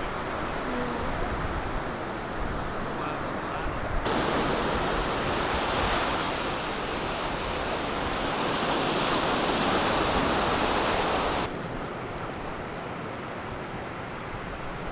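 Steady rushing noise of sea surf on the beach mixed with wind, louder for several seconds in the middle, starting and stopping abruptly.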